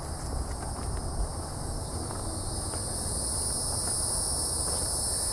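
Steady high-pitched chorus of crickets, with footsteps on dirt and leaf litter and camera handling noise as the person walks.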